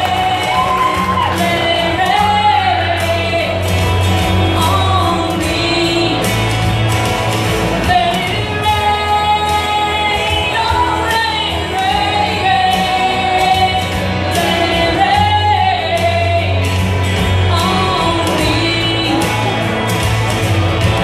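A woman singing into a microphone over backing music, amplified through a PA.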